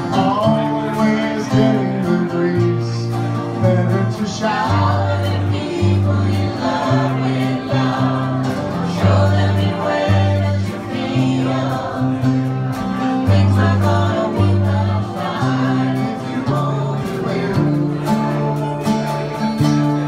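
Live singalong music: guitars played under a group of voices singing together, with low bass notes that change every second or so.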